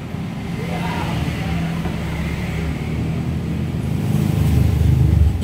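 A motor vehicle engine rumbling, growing louder toward the end and then dropping away.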